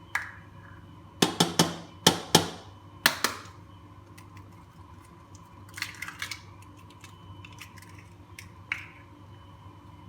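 Eggs cracked against the rim of a mixing bowl: several sharp knocks in quick succession, starting about a second in, then lighter clicks of shell a few seconds later.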